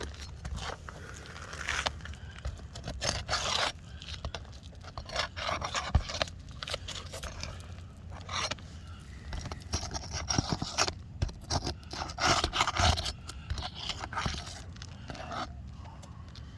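Irregular scraping and rasping in short strokes, stopping and starting, with a couple of sharp knocks.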